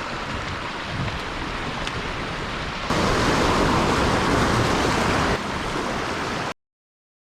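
Sea surf washing on a rocky shore, a steady rushing noise. It jumps louder about three seconds in, drops back about two seconds later, then cuts off abruptly to silence near the end.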